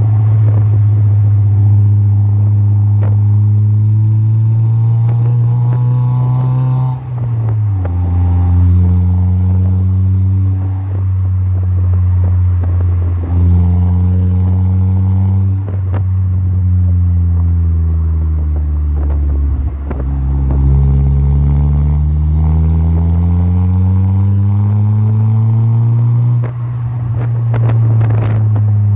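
Car engine heard through a Mugen Sport FI 90 aftermarket bass muffler while driving. The deep exhaust note rises in pitch under acceleration and drops sharply at upshifts, about seven seconds in and again near the end. In between it falls away as the car slows, then climbs again.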